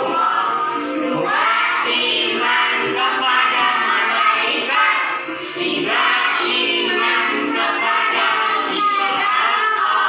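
Music with singing: a continuous sung melody over accompaniment.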